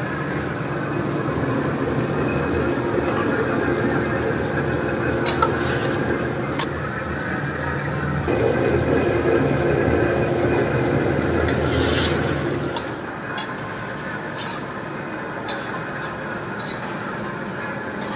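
Duck and vegetables cooking in a wok: a steady sizzling hum, with the metal spatula scraping and clinking against the wok now and then. The hum drops away about thirteen seconds in, leaving a quieter background and a few sharp clinks.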